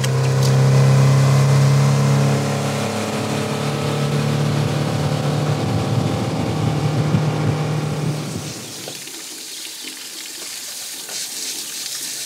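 Boat motor running steadily at speed, with water and wind noise around it. About eight seconds in, the engine hum fades away and leaves a quieter steady hiss.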